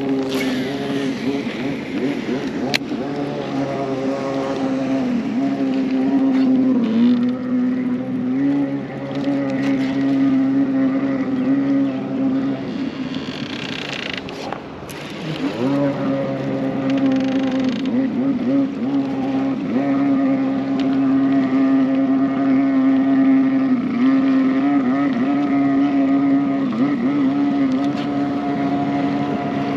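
Boat motor running steadily with a strong humming tone. Its pitch dips briefly about seven seconds in, then drops and climbs back again about fifteen seconds in.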